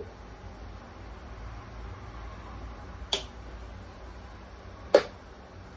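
Cabbage being stirred in a frying skillet, the food shifting over a faint steady frying sound. A utensil knocks sharply against the pan twice, lightly about three seconds in and harder about five seconds in.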